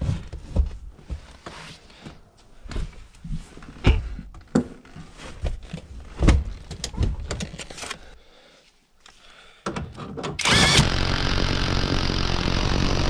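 Clunks and knocks of a car seat and its bolts being handled and fitted into a stripped car interior. About ten seconds in, a loud steady noise starts, the loudest thing here, runs for about three seconds and cuts off suddenly.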